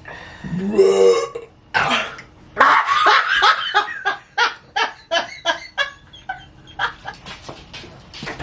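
A person lets out one long, loud burp about half a second in, then laughter breaks out in quick repeated bursts that fade toward the end.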